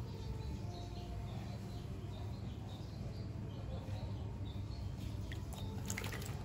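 Water moving as a baby macaque swims in a small frame pool, with a short burst of splashing about six seconds in as it stands and grabs the pool's edge. Faint high chirps and a steady low hum run underneath.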